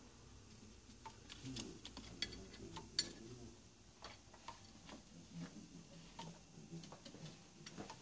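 Irregular light clicks and taps of a parrot's beak and claws on a ceramic jar as it moves about inside it, one sharper click about three seconds in.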